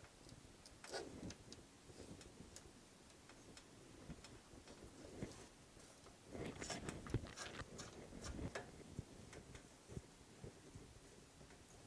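Faint clicks and small metal taps of a bicycle V-brake arm being fitted onto the fork's brake boss and its bolt handled, busiest from about six to nine seconds in.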